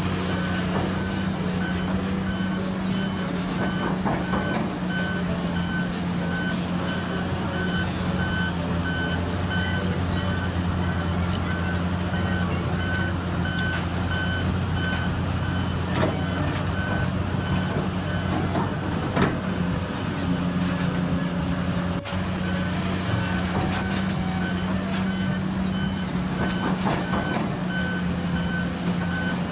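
Reversing alarm of heavy construction machinery beeping at an even pace over a steadily running heavy diesel engine, the beeping pausing for a few seconds past the middle. A couple of sharp knocks are heard around the middle.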